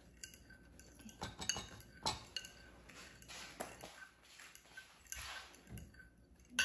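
A metal utensil clinking and scraping against a ceramic bowl in irregular taps as raw beaten eggs are stirred.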